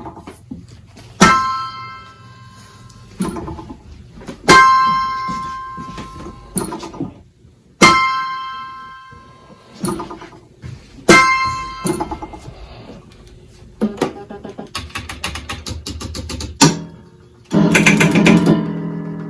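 Yamaha electronic keyboard played by a Pianocorder's solenoids: struck chords every second or two that ring and die away, then a quick run of repeated notes and a fuller passage near the end.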